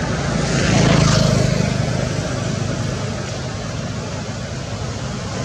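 Steady low engine rumble, louder about a second in and then easing off.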